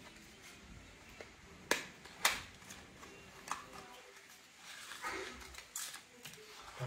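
Hands handling a small plastic vape device and its box: a few sharp clicks, the two loudest about two seconds in and half a second apart, with soft rustling near the end.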